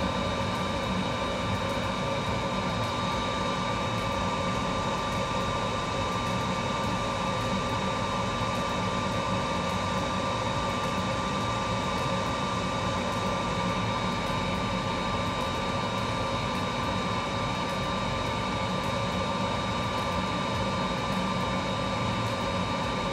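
Steady whirring hum of a fan or blower running at the workbench, with a thin constant whine over it and no separate knocks or clicks.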